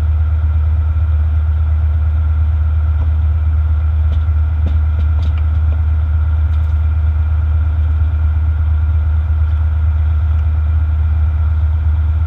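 Fire engine's diesel engine running with a steady, deep, even drone.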